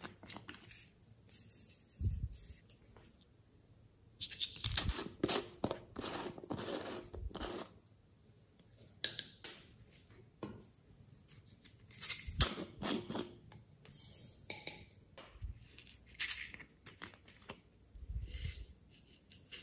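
Hands handling small plastic toy bottles of glitter and sprinkles: irregular bursts of clicks, rattles and crackly scraping, with a few low thumps as things are set down, and sprinkles shaken out onto slime near the end.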